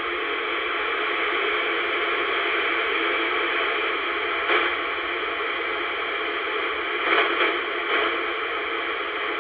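Steady static hiss from a Royce 619 CB base station's speaker on an open channel. A few faint brief blips in the middle and near the end are a very quiet station under the noise.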